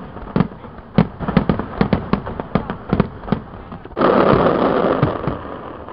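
Aerial fireworks shells exploding in a rapid run of sharp bangs, several a second. About four seconds in, a big salvo sets off a sudden loud, dense burst of noise that fades over about a second and a half.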